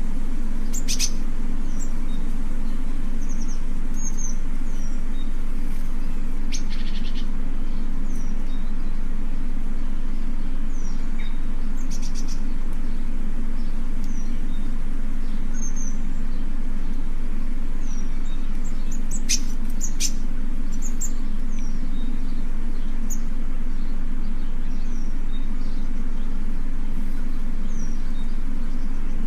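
Small birds chirping, with short high calls falling in pitch, repeating every second or so, over a steady low hum.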